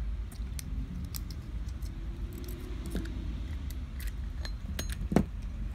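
Small clicks and taps of Glock 17 pistol parts being handled and fitted together by hand during reassembly, with one sharper click about five seconds in, over a low steady rumble.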